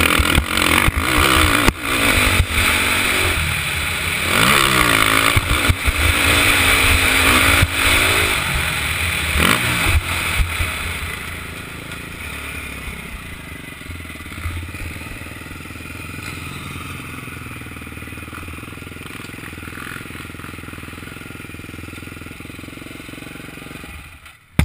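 KTM 450SX single-cylinder four-stroke motocross engine revving hard and changing pitch over rough dirt, heard from a helmet camera, then easing to a quieter steady run after about ten seconds as the bike slows. The sound drops sharply near the end.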